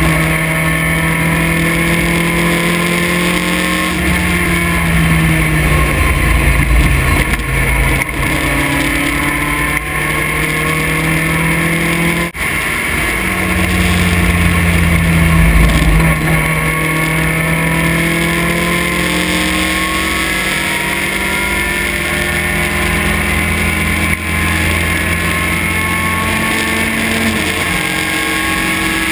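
Vintage race car's engine heard from the open cockpit at racing speed, its pitch rising and falling with the throttle, with a brief cut about twelve seconds in, as at a gear change. Wind noise runs under it.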